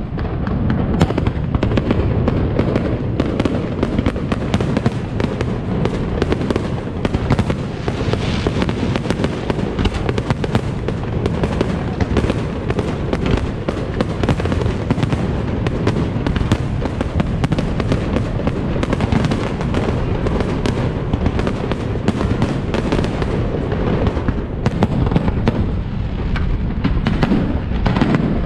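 Fireworks display: aerial shells launching and bursting in quick succession, a dense, unbroken barrage of bangs and crackling over a low rumble.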